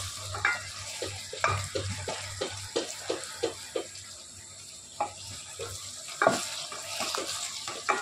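Wooden spatula knocking and scraping against an aluminium pot while stirring stuffed brinjals frying in tomato-onion masala, over a steady sizzle of hot oil. The knocks come about three a second, pause briefly about four seconds in, then return as a few louder strikes.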